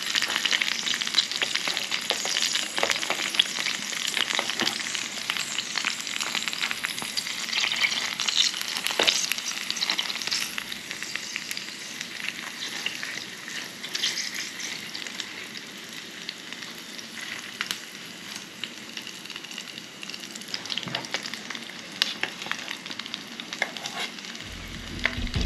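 An egg sizzling and crackling in hot oil in a small non-stick camping pan over a canister gas stove, with a wooden spatula scraping and tapping against the pan. The sizzle softens for a while in the middle and picks up again toward the end.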